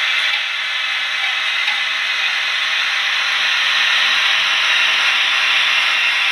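Model Ce 6/8 'Crocodile' locomotive and its freight train running on the layout track: a steady whirring rush of motor and wheels on rail that grows a little louder as the train nears.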